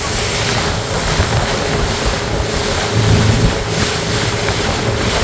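Motorboat moving at speed: wind buffeting the microphone and water rushing and splashing past the hull, over a faint steady engine hum.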